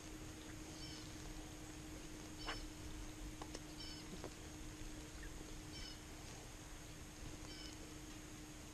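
Faint short bird chirps, repeating every second or two, over a steady low hum, with a few soft clicks.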